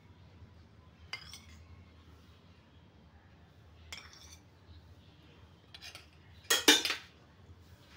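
A metal spoon clinking against steel cookware: a few single clinks, then a short clatter of several strikes near the end, the loudest of them.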